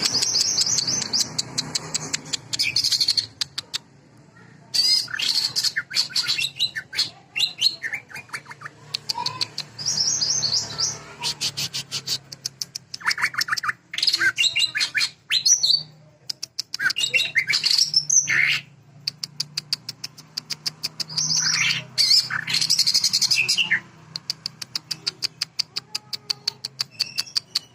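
A cucak ijo (green leafbird) singing loudly in bouts of varied song: fast rattling trills of rapid repeated notes and sharp sweeping whistles. Among them is the rapid 'sewing machine' (mesin jahit) filler that the bird mimics.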